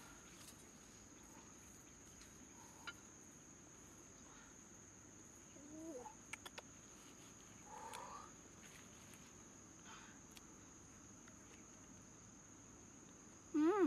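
Faint outdoor background with a steady high-pitched insect drone. A few short pitched animal calls and small clicks come in mid-way, and a louder call near the end.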